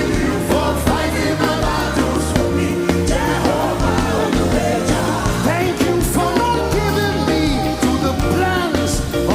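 Live worship music: a band with steady bass and a drum beat, with voices singing over it.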